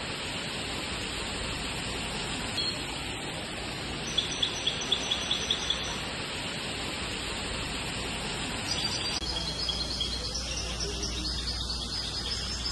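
Birds chirping: short, high chirps in a quick run about four seconds in and again in the later part, over a steady background hiss.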